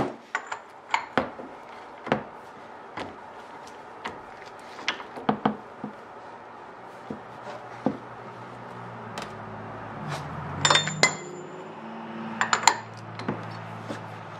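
Socket and ratchet on a steel axle nut: scattered sharp metal clinks and clicks as the socket is fitted and the wrench is worked, with the loudest clanks in a cluster about two-thirds of the way in. A low steady hum comes in over the second half.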